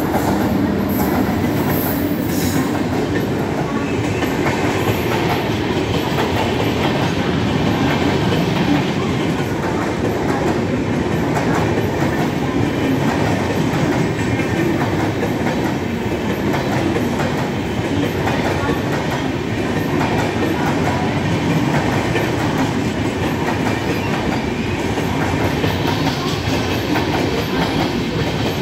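A passenger express train of LHB coaches running through the station at speed behind an electric locomotive: a steady loud rumble with the clickety-clack of wheels over rail joints as the coaches pass.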